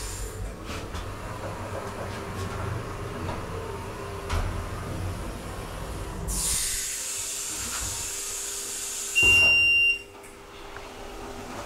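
Steady low hum, then a hiss of about three seconds, then a loud electronic beep lasting under a second that cuts off suddenly.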